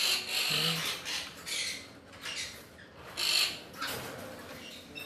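Senegal parrot chicks giving short, raspy, hissing calls, one about every half second.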